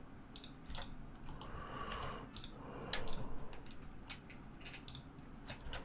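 Faint, scattered computer keyboard keystrokes and mouse clicks, single taps a fraction of a second to a second or so apart.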